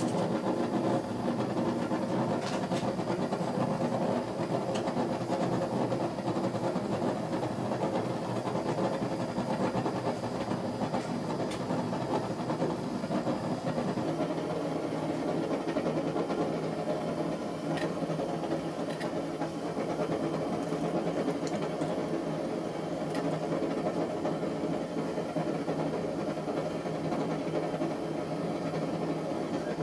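Propane forge burner running with a steady hiss. The sound shifts slightly about halfway through.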